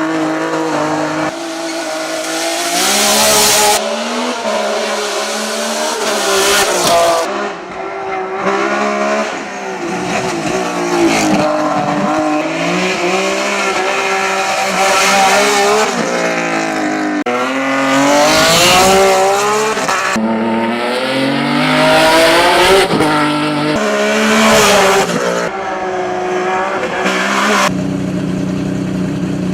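Hill-climb race car engines at full throttle, the revs climbing and dropping again and again through gear shifts, with several abrupt cuts from one run to another.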